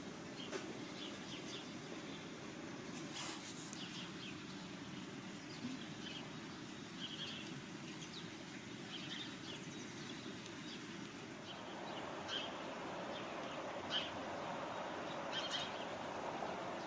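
Nature ambience: small birds chirping now and then over a steady rushing background, which grows louder about twelve seconds in.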